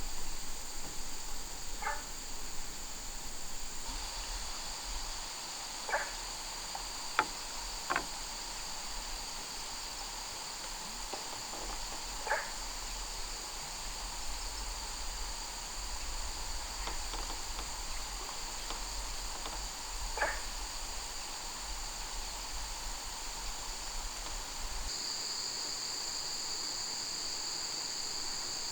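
A chorus of insects such as crickets chirring steadily at two high pitches, louder for the last few seconds. A handful of short, sharp knocks sound over it.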